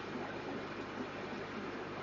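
Aquarium filter running: a steady low hum with an even rush of moving water.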